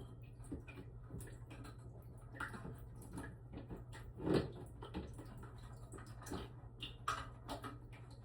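Faint scattered clicks and taps of hands working loose the plastic supply-line nut under a toilet tank, with one louder knock a little past the middle, over a steady low hum.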